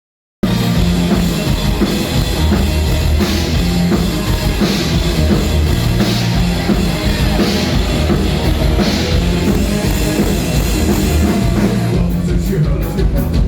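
Live industrial/EBM music, loud, with heavy bass and a pounding drum beat, starting abruptly just after the start. Near the end a fast, even ticking joins the beat.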